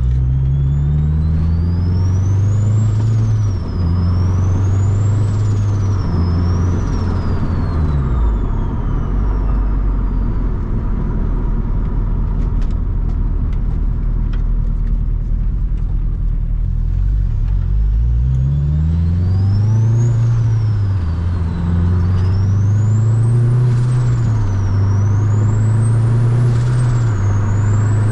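Turbocharged Honda K-series four-cylinder accelerating hard through the gears twice, the engine note climbing and dropping at each shift, with a high turbo whine rising and falling along with it. Between the two pulls it settles to a steadier cruise.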